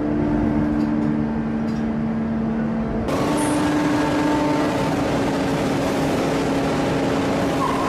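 Large hydraulic forging press working a hot steel billet: a steady machinery hum of a few low tones. About three seconds in, a loud hissing noise sets in suddenly on top of it and carries on.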